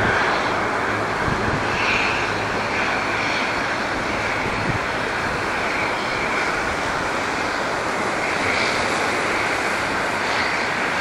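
Single-engine turboprop of a Cessna Grand Caravan (Pratt & Whitney PT6A) running at taxi power as the plane turns on the runway: a steady roar with a high whine that swells and fades.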